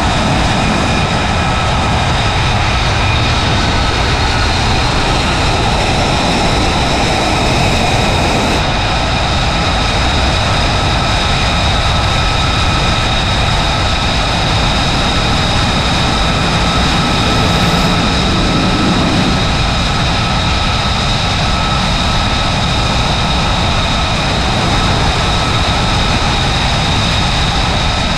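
F-35B fighter jet engines running, a loud steady rush with several high-pitched whining tones on top.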